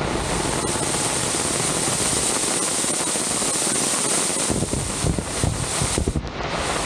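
Aerial fireworks: a dense, continuous high hissing crackle from many effects at once, steady in level. Low booming bursts join in over the last couple of seconds.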